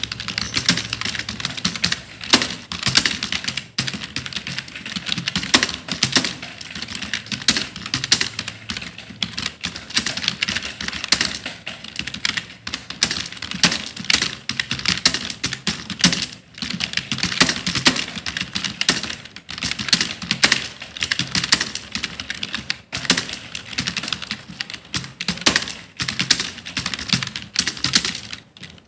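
Continuous fast typing on a computer keyboard: a dense, irregular stream of key clicks with no pauses.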